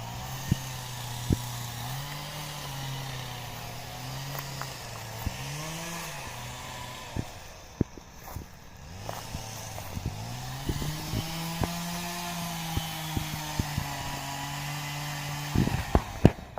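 Chainsaw engine running, its pitch rising and falling as it is throttled up and down, with scattered sharp knocks and a cluster of them near the end.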